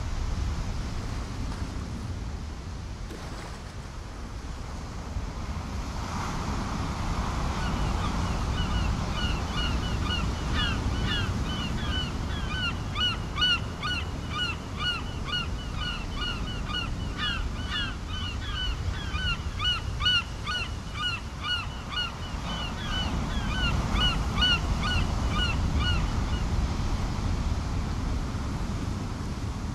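A flock of birds calling over a steady low rumble of wind and surf: many short, quick calls, often overlapping, that start about eight seconds in and stop a few seconds before the end.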